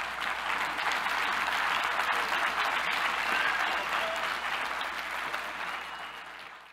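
Congregation applauding after the closing words of a sermon: dense clapping that holds steady, fades over the last couple of seconds, then cuts off.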